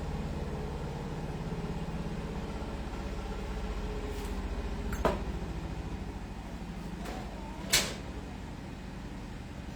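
Two sharp knocks from kitchen items being handled, about five seconds in and a louder one near eight seconds, over a steady low hum.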